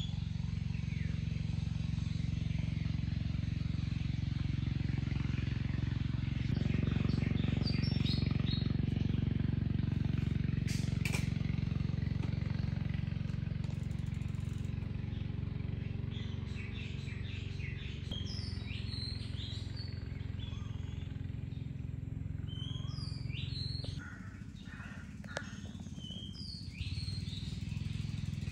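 Small birds chirping and calling now and then over a steady low rumble, like a distant motor. The rumble grows louder about a quarter of the way in and eases off near the end.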